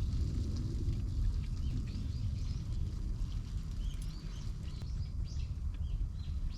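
Small birds chirping in short, high calls, more often from about two seconds in, over a steady low rumble.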